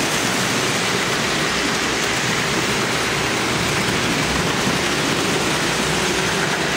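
Several Lionel O-gauge toy trains running at once on metal three-rail track: a steady, even rumble and whir of wheels and electric motors.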